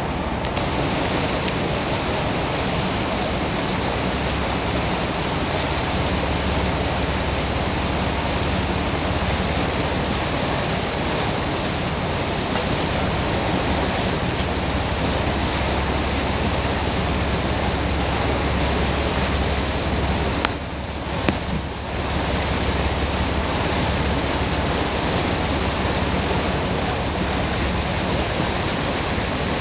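Steady rushing noise of churning wake water and wind aboard a moving motorboat, with a low steady hum from its engine underneath. The rush dips briefly about two-thirds of the way through.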